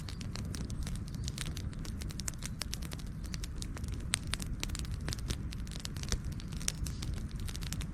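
Campfire burning: wood crackling and snapping in quick irregular clicks over a steady low rumble of the flames, with a few louder pops.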